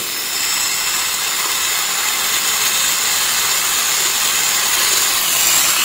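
Epilady epilator's small 12 V DC motor running steadily, turning its coiled spring against a hairy forearm to pluck the hairs. It makes a steady high hiss with a thin whine. The epilator is working normally again after a broken wire was soldered.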